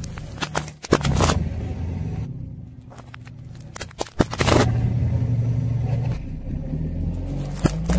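Car engine running at low speed while a tyre rolls over and crushes objects, with sudden sharp cracks and crunches about a second in, around four seconds in and near the end.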